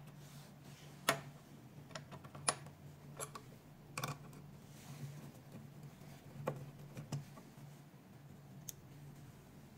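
Irregular light clicks and taps of a screwdriver working screws out of a plastic machine housing, about eight in all, over a faint steady low hum.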